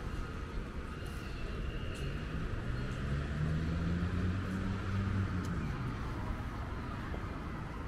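Low engine hum of a passing vehicle that swells for a few seconds and fades away, over the steady noise of a city street.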